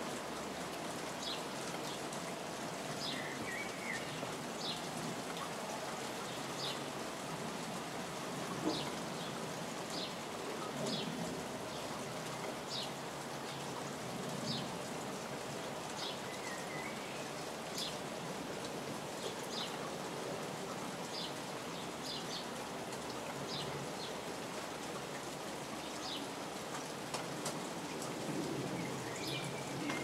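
Steady rain falling on a plastic tarpaulin and grass, drops splashing into water pooled on the tarp. A bird chirps short high notes over it, about once a second.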